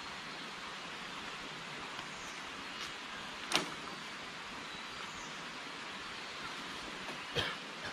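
Steady outdoor background hiss, with one sharp crack of dry wood about three and a half seconds in and a couple of smaller wooden knocks near the end, as sticks are stepped on and handled.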